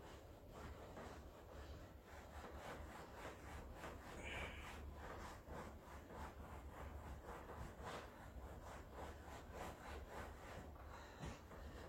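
Repeated rubbing or scraping strokes, a steady back-and-forth rhythm of about two or three strokes a second, faint.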